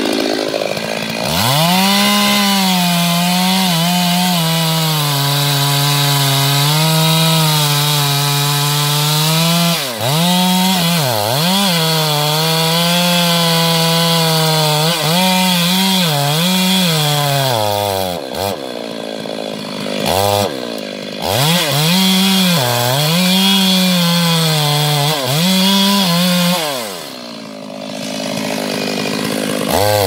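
Two-stroke Stihl chainsaw at full throttle sawing through the base of a thick tree trunk. Its engine note dips and picks up again several times as the throttle is eased and reapplied, falls off near the end, then revs once more.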